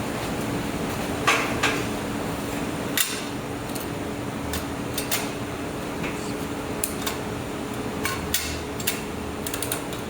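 Sharp metal clicks and clanks at irregular intervals, the loudest pair just over a second in, as a clamp and metal workpiece are handled and set in place. A steady machine hum runs underneath.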